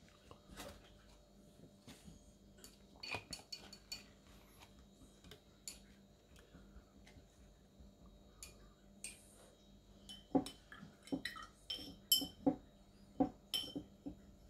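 Scattered light clicks and clinks of art supplies being handled on a desk, coming thicker and louder in the last few seconds.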